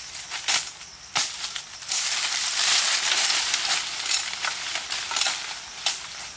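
Twigs snapping and leafy branches rustling and crackling as a person pushes through and grabs at dense undergrowth. There are sharp snaps about half a second and a second in, a longer, louder stretch of crackling rustle from about two seconds to five, and another snap near the end.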